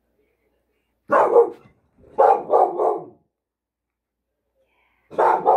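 A pet dog barking in short loud bursts: a bark or two about a second in, three quick barks between two and three seconds, and another round near the end.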